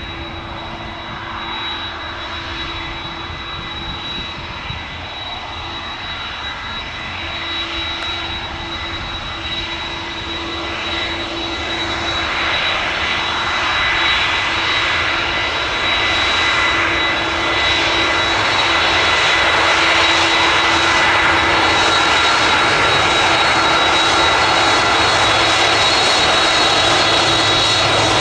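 Jet airliner's turbofan engines with a steady high whine, growing louder over about the first twenty seconds and then holding steady.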